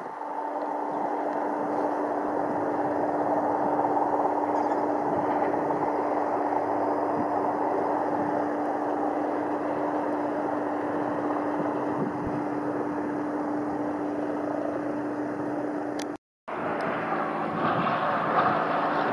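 Cessna 172M Skyhawk's four-cylinder Lycoming engine and propeller running steadily through a touch-and-go, with a steady hum over a broad drone. Near the end the sound breaks off for a moment and comes back louder as the plane climbs out.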